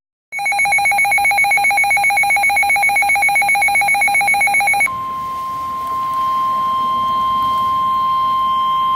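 A weather radio's electronic alert alarm beeping rapidly for about four and a half seconds, then the NOAA Weather Radio warning alarm tone, a single steady tone of about 1050 Hz, taking over about five seconds in. The tone signals that a warning, here a flood warning, is about to be broadcast.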